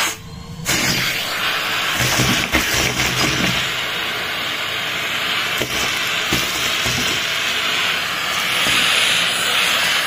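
Henry vacuum cleaner running, its hose nozzle sucking at a carpet, a steady hiss of rushing air. The sound dips sharply for a moment in the first second, then carries on evenly.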